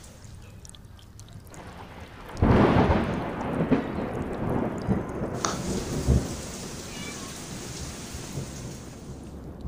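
Rain falling steadily, then a loud crack of thunder about two and a half seconds in that rumbles on and slowly fades.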